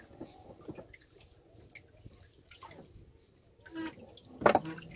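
Water lapping, splashing and dripping in a boat's fish hold where live hilsa are swimming, with small scattered splashes and one louder splash about four and a half seconds in.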